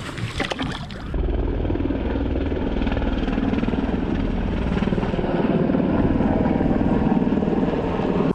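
Steady low rumble of a helicopter flying over the river, starting suddenly about a second in.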